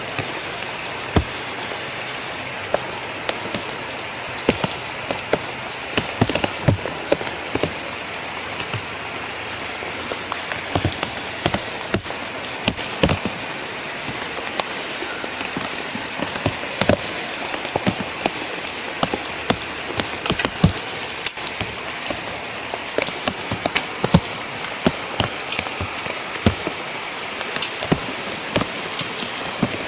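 Steady heavy rain from a tropical storm, with many individual drops ticking sharply as they strike close by.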